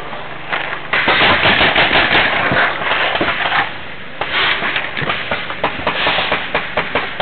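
Paintball markers firing in rapid strings of shots: a dense burst from about a second in, a short lull, then a second run of shots.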